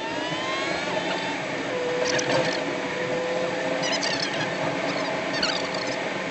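Vehicle running on the road, heard from inside the cab: a steady road and engine noise with a constant hum. Short high squeaks recur about every one and a half seconds.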